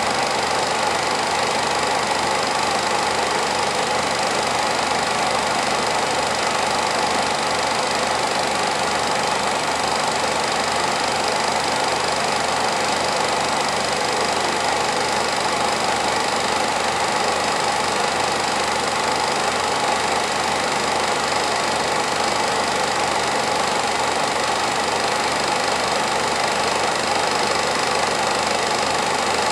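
Film projector running steadily: a constant mechanical whir with a fast, even clatter.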